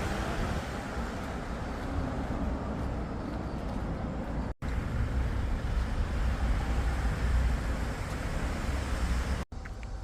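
Steady outdoor rumble and hiss, heaviest in the deep bass, cut off abruptly twice, about four and a half and nine and a half seconds in.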